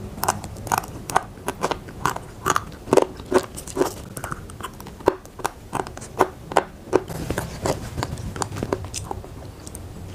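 Crunching and chewing of lidi-lidian, a crunchy, spicy stick-shaped snack, in a run of sharp, irregular crunches about two or three a second.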